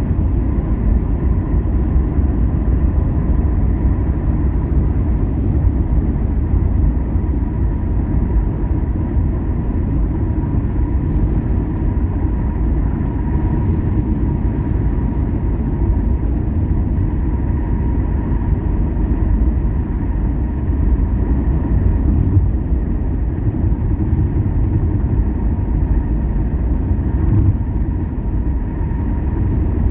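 Steady engine and road rumble of a vehicle driving along a highway, heard from inside the cabin, with a faint steady whine throughout.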